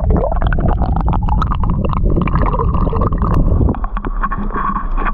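Muffled underwater sound from a camera dipped into the lake: a loud low rumble of moving water with many clicks and knocks.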